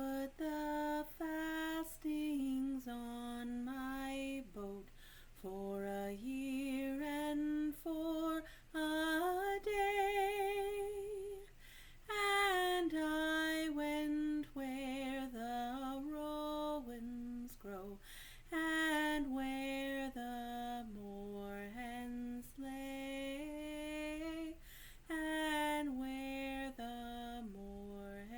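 A woman singing a folk song solo and unaccompanied, in phrases of held notes, some with a wavering vibrato.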